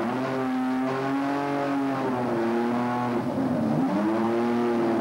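Ford Cosworth GBA turbo V6 Formula 1 engine running at low revs, its pitch dipping and rising slowly as the throttle is moved.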